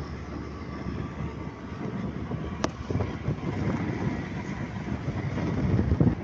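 Low, steady running rumble of a moving vehicle heard from inside it, with a single sharp click a little before halfway through.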